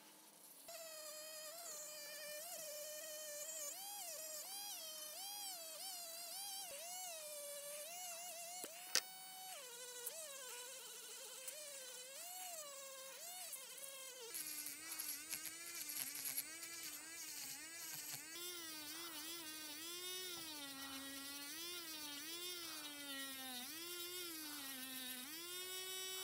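Handheld rotary tool spinning a sanding drum against a wooden awl handle: a high whine whose pitch wavers and sags repeatedly as the drum is pressed to the wood. A single click sounds near the middle, and about halfway through the whine drops to a lower pitch and goes on wavering.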